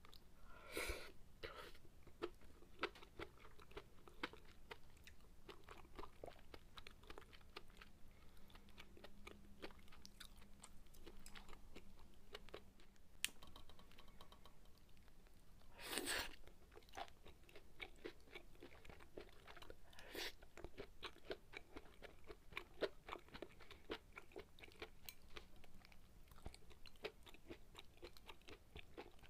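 Close-up chewing and mouth sounds of a person eating sukiyaki: soft wet clicks and crunches at an irregular pace. A few louder brief noises break in, about a second in and again around sixteen and twenty seconds.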